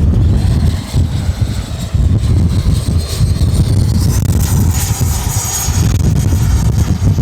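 Electric ducted-fan whine of a Freewing Avanti S RC jet, with its 80 mm WeMoTec Midi Evo fan at full power, heard in flight and loudest a little past the middle. Strong wind buffets the microphone throughout, a heavy gusting rumble that is the loudest sound.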